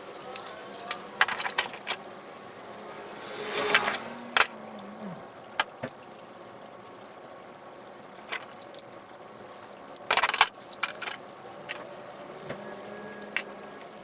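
Hand tools clinking and clicking against metal in scattered, irregular strokes, with a short whoosh about four seconds in, as spark plugs are fitted into the engine.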